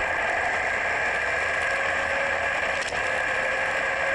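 Electric RC buggy's motor and gear drivetrain whining steadily as it drives, heard from a camera mounted on the car, with a hiss of tyres and air over it.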